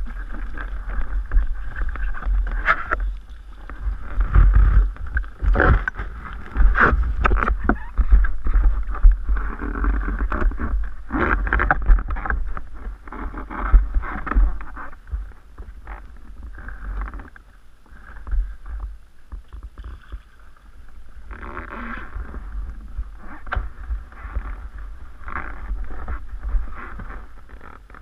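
River water sloshing and splashing against the inflatable hull of a river catamaran, heard close to the microphone, over a steady low rumble, with scattered knocks. The splashing comes in uneven surges, busiest in the first half and again near the end.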